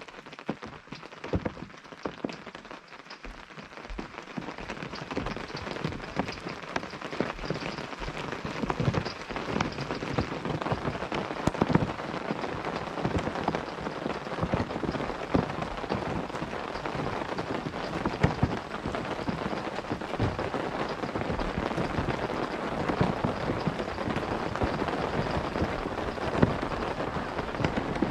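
Rain falling on a tent, many separate drops striking the fabric, getting heavier about five seconds in and then holding steady.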